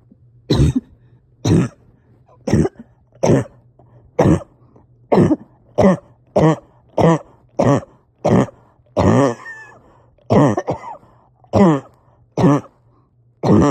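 A person coughing over and over in a long fit, about one cough a second, some of them voiced and rasping, with breathing struggles.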